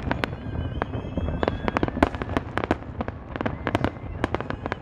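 Fireworks finale barrage: a dense, irregular stream of sharp bangs from bursting shells, several a second, with high whistles running among them.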